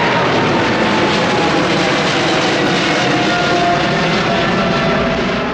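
Boeing 777 freighter's twin GE90 turbofans at takeoff climb power as the jet passes overhead: loud, steady jet engine noise with a few whining tones sliding slowly down in pitch as it moves away.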